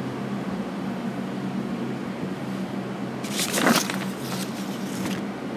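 Room tone: a steady low hum, with a few soft rustles from about three seconds in.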